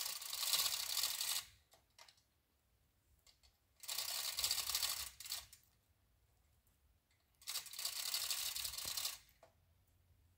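2-ton manual chain fall being hauled by hand: three bursts of chain rattling and clicking, each about a second and a half long, with pauses between as the hoist takes up load on a strap pulling a tree over.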